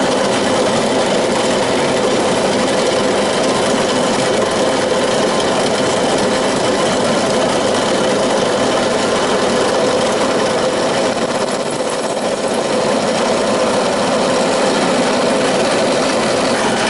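Benchtop drill press running steadily as a small drill bit is fed through a brass plate. The sound dips slightly about twelve seconds in.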